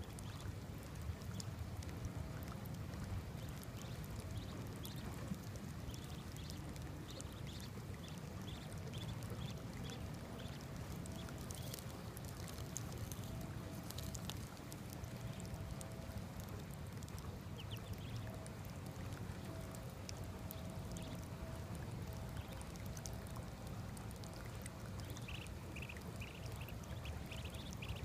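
Water running from a garden hose into a shallow puddle, a steady pouring wash, with muscovy ducklings peeping in short bursts now and then as they dabble.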